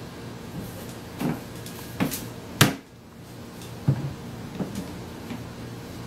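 Plastic knocks and clacks from a pet-food bin's hinged lid as a scarlet macaw rummages under it into the pellets: a handful of separate knocks, the loudest a sharp clack about two and a half seconds in.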